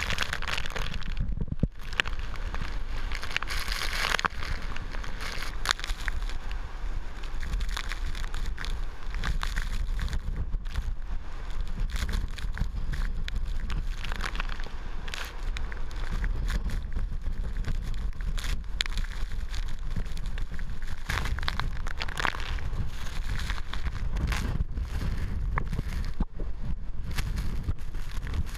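Typhoon eyewall wind blowing hard on the microphone, a steady low rumble that swells and eases in gusts, with driving rain hitting the camera in many sharp ticks.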